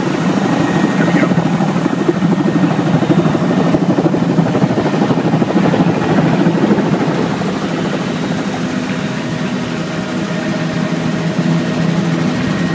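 Bell LongRanger helicopter's turbine and rotor heard from the cabin during liftoff and climb: a loud, steady, fast rotor beat over the engine's hum.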